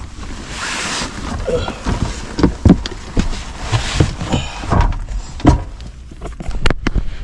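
Irregular bumps, knocks and rustling as a person crawls and shifts through a cramped attic, with a few sharper thumps.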